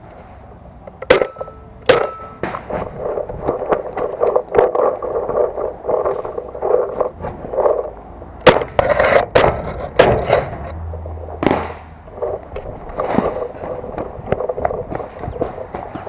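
Close handling noise on a body-worn camera: cloth and gear rub and scrape against it while a paintball marker is gripped beside the lens. Sharp knocks and pops come through it at intervals, loudest about a second in, two seconds in, and again around eight and a half and ten seconds in.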